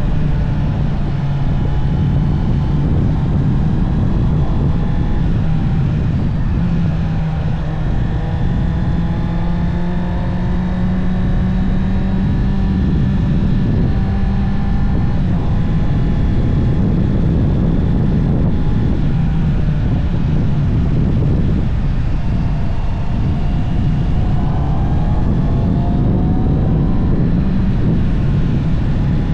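Honda CB650R's inline-four engine running through its stock exhaust on the move, under heavy wind noise on the microphone. The engine pitch climbs slowly through the first half, falls back about halfway through, and rises again near the end.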